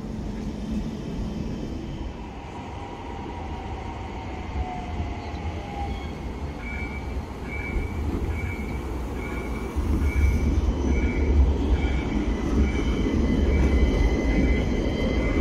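City tram rolling along street track and passing close: a low rumble that grows louder about ten seconds in, with a slowly falling whine a few seconds in and a high, evenly pulsing tone over the second half.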